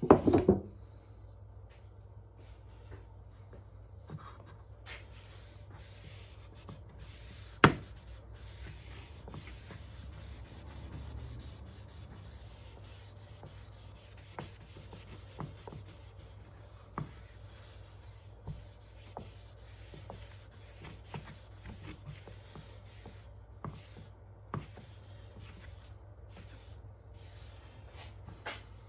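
Cloth rag rubbing finishing oil into an oak board, a soft rubbing sound. A loud clunk comes right at the start, a sharp knock about eight seconds in, and light taps scattered through.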